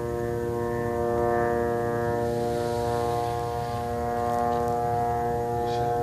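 Military drone flying overhead, giving a steady buzzing hum made of many even tones that hold their pitch while the loudness swells and eases slightly.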